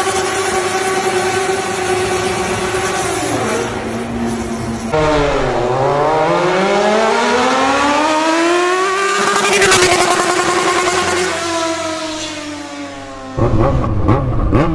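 Yamaha XJ6 600 cc inline-four engine through a straight pipe with no muffler, running loud at high revs. It holds one high note for about four seconds, then, after a break, dips and climbs steadily in pitch for several seconds before falling off. Near the end come two quick rev blips.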